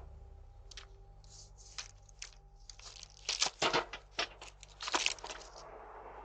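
Short papery rustles and crinkles of mail being handled, picked up faintly by a doorbell camera's microphone, loudest in a cluster about three and a half seconds in and again about five seconds in.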